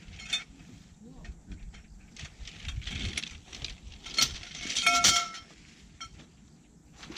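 Camping gear being handled and unloaded at an SUV's open tailgate: scattered clatter, clicks and rustling, with a sharp knock about four seconds in and a short squeak just after.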